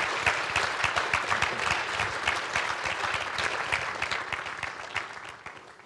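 Audience applauding with many hands clapping, fading away near the end.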